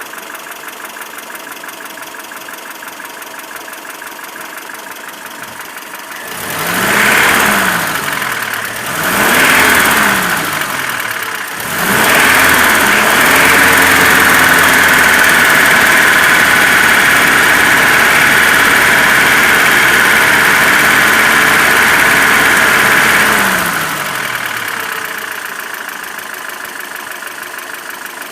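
ZMZ-402 inline-four petrol engine, warm, idling with a dull knock, then revved twice in short blips and held at raised revs for about ten seconds before dropping back to idle. The knock comes from play between the piston pins and connecting rods in all four cylinders.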